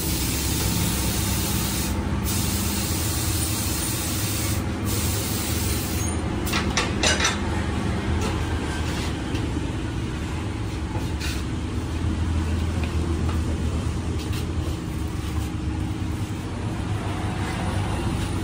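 Compressed air hissing steadily, cutting off suddenly about six seconds in, followed by a few sharp clicks; a low steady hum of traffic and machinery runs underneath.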